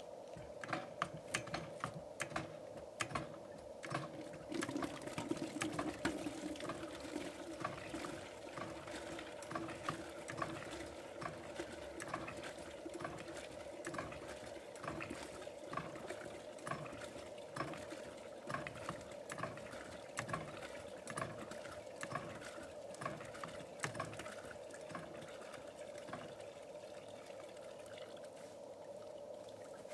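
Hand water pump at a well being worked stroke after stroke, its handle and mechanism clanking about one and a half times a second, with water splashing out of the spout. The strokes stop shortly before the end.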